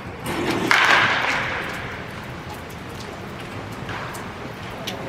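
Baseball bat striking balls in an indoor batting cage. One loud crack comes about a second in and fades slowly as it echoes through the large hall, with a fainter crack near the end.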